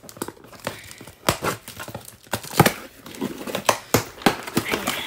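Cardboard shipping box being opened: a blade slitting the packing tape, then the flaps pulled back, giving scattered scrapes, taps and crinkles of cardboard and paper, the loudest knock about two and a half seconds in.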